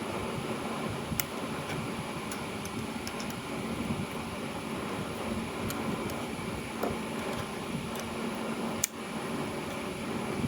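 Steady mechanical hum and hiss of room ambience, with a few faint scattered clicks and one sharp click near the end.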